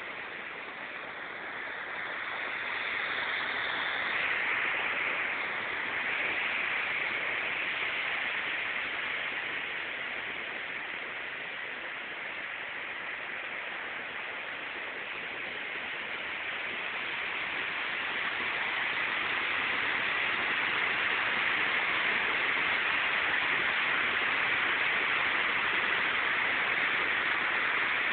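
Waterfall's steady rush of falling water, growing louder in the latter part.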